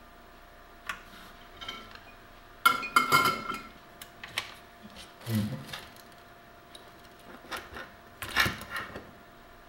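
Knocks, clicks and rattling of a printer's power-supply circuit board being flipped over and handled on a workbench, the loudest clatter about three seconds in and again near the end.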